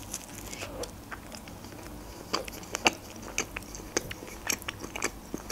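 Close-miked chewing of a mouthful of burger: soft, wet mouth clicks and smacks, sharper and more frequent from about two seconds in.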